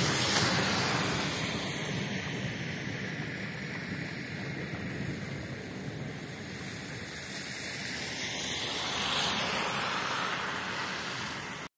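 Steady hiss of heavy rain on a wet street, with wind on the microphone. It swells near the end as an SUV drives past, its tyres splashing through the water on the road, then cuts off abruptly.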